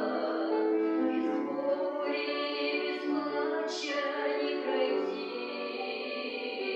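A hymn sung by one voice with keyboard accompaniment, held notes moving in slow phrases.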